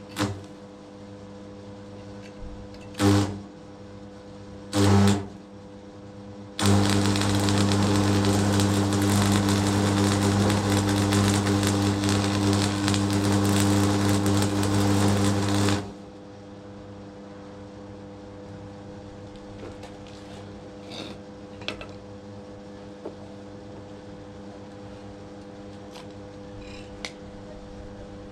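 DeWalt electric hammer triggered briefly twice, then run for about nine seconds with a steady motor hum and a fast hammering rattle, before cutting off suddenly.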